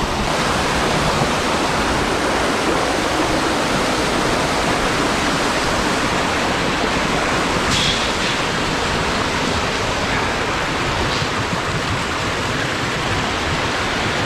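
Rushing creek water cascading over rocks: a steady, loud, even rush.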